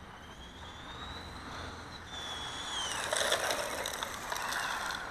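A 1/18-scale RC short course truck's brushed electric motor whining, its pitch rising and falling as it drives. About three seconds in it gets louder, with gritty crackling from the tyres on loose gravel.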